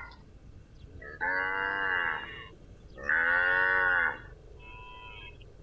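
Cow mooing: two loud moos, each about a second long and rising then falling in pitch, followed by a fainter, shorter call.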